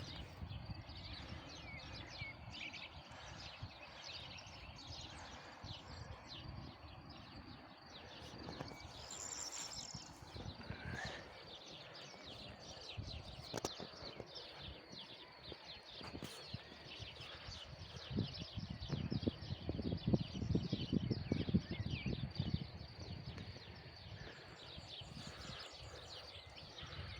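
Outdoor nature ambience: many faint clicks and crackles run throughout, with low rumbling bumps that grow louder between about 18 and 23 seconds in. A short bird chirp comes near the middle.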